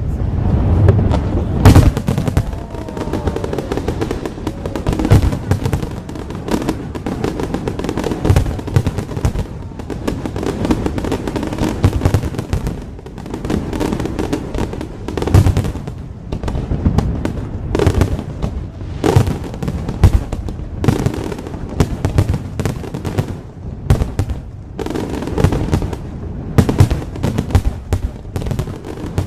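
Fireworks display bursting: a long run of loud bangs at irregular intervals, some coming in quick clusters.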